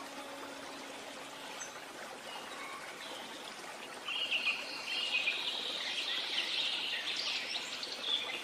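Songbirds chirping and trilling in quick high notes, sparse at first and then denser and louder from about four seconds in, over a steady hiss.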